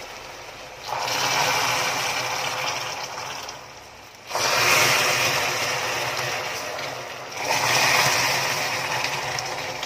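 Boiling caramel in a stainless steel pan hissing and sizzling as hot water is poured in a little at a time. Three times, at about 1, 4 and 7 seconds in, the hiss starts suddenly and then dies down over a few seconds.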